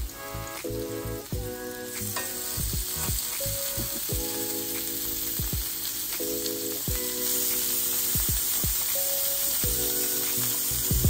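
Boiled octopus sizzling on a hot grill: a steady frying hiss that grows louder about two seconds in and again later.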